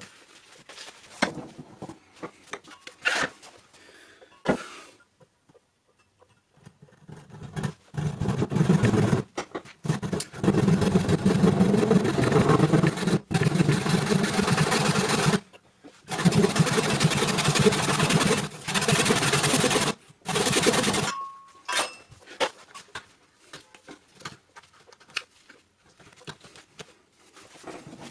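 Hand saw cutting a workpiece clamped in a bench vise: a long run of quick, even sawing strokes through the middle, broken by a few short pauses. Before it come clicks and knocks as the piece is set in the vise; after it, a short ring and more light knocks as the saw is put down.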